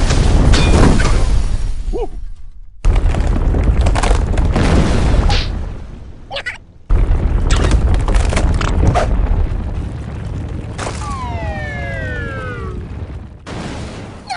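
Cartoon earthquake sound effects: a loud, deep rumbling with cracking and crashing as the ground splits open, starting and stopping abruptly a couple of times. About eleven seconds in, a whistle-like tone glides down in pitch for about two seconds, a falling sound.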